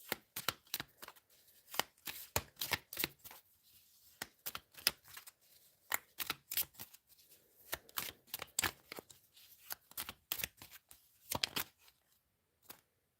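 A deck of cards being shuffled and handled by hand: a long run of quick, irregular card clicks and rustles that stops about a second before the end.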